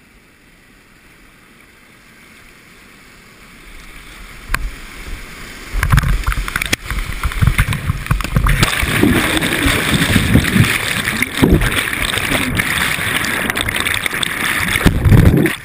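Rushing whitewater heard from a kayak in a rapid. It is fairly quiet at first, builds from about four seconds in and turns loud about six seconds in as the boat drops into the rapid. Near the end there is a heavy low churning as foaming water washes over the boat.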